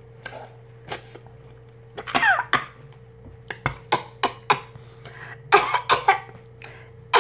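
Close-up eating sounds from spicy king crab: lips smacking and sucking meat from the shell, broken by a few short coughs and throat sounds, the loudest about five and a half seconds in.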